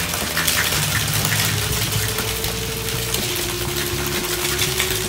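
A metal cocktail shaker is shaken hard with ice and liquid inside, the ice rattling fast and continuously against the tin. This is the shake that chills and mixes an espresso martini of vodka, coffee and coffee liqueur.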